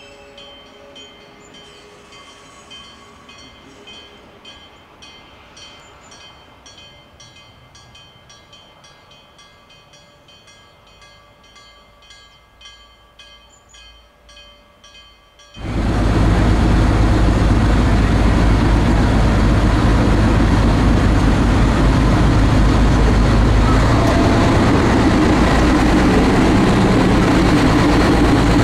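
Quiet railway station sound with a faint, fast, regular ticking or ringing, about two to three strikes a second, over a few steady tones. About halfway through it cuts abruptly to a diesel railcar's engine running loud and close with a heavy low rumble as the railcar moves along the platform.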